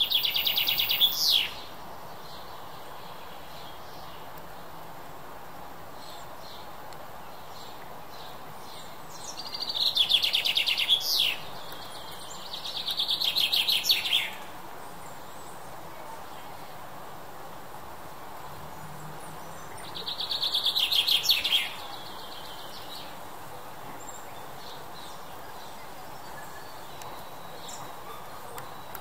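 Male British chaffinch singing four song phrases, each a fast trill of about two seconds that ends in a quick falling flourish, with long pauses between them over a steady faint background hiss.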